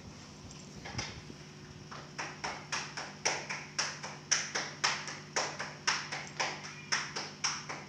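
A fast, even run of sharp taps, about three and a half a second, starting about two seconds in after a single knock near the one-second mark.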